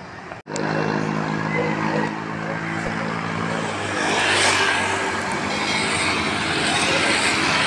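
Motor vehicle engine running with a steady hum. From about four seconds in, a louder rushing noise of passing traffic builds up.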